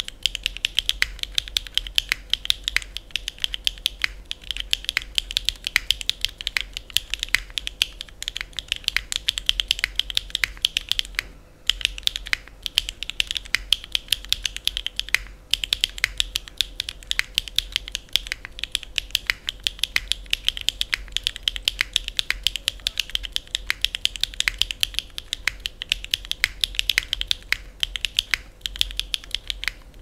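Fast continuous typing on a NEO65 gasket-mount mechanical keyboard fitted with stock, factory-lubed HMX Cheese linear switches on an aluminium plate with no foam: a dense stream of crisp keystroke clacks, broken by a short pause about eleven seconds in.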